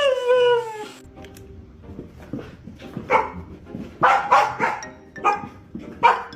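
Dog vocalizing: a drawn-out wail falling in pitch that ends about a second in, then a run of about six short barks from about three seconds on.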